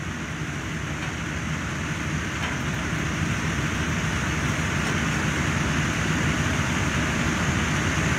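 Fire engine running at a fire scene, its pump feeding hoses: a steady low mechanical rumble under an even hiss, slowly getting louder.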